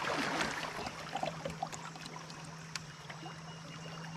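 River current swirling and trickling around a wading angler and a kayak, louder in the first second, with scattered small clicks. A steady low hum comes in about a second in.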